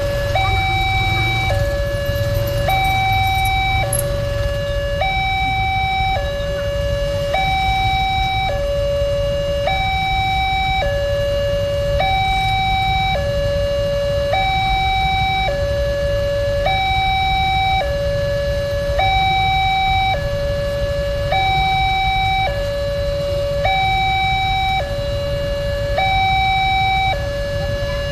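Alkmaar electronic level-crossing siren sounding a two-tone warning, a higher and a lower tone alternating about once a second without a break.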